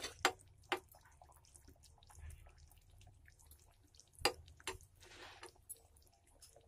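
Chicken and yogurt masala simmering in a steel pot: scattered bubble pops and drip-like plops over a low hum, with a few sharper clicks, the loudest at the start and about four seconds in.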